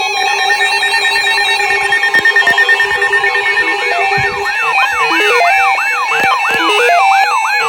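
Electronic alert tones: a steady ringing chord of beeping tones, then from about four seconds in a siren tone yelping up and down about three times a second.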